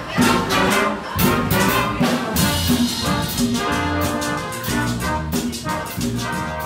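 Latin fanfare band playing live: brass and saxophones over a steady beat from drum kit, congas and electric bass.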